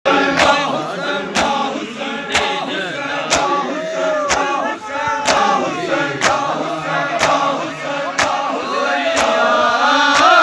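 Crowd of men chanting a noha together, punctuated by a loud unison slap of hands on bare chests about once a second: matam, ritual chest-beating in mourning.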